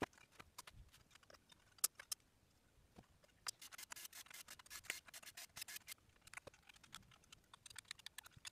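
Faint, scattered small clicks and rubbing of aluminium frame parts and fittings being handled and fitted together, densest in the middle.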